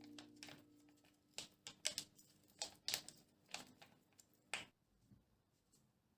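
About a dozen light, irregular clicks or taps over the tail of fading background music, then near silence.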